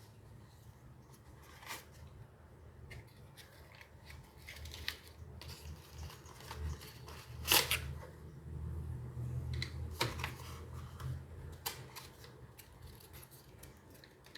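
Cardboard and plastic packaging being handled while a mouse is unboxed: soft rustling with scattered taps and clicks, the sharpest about halfway through.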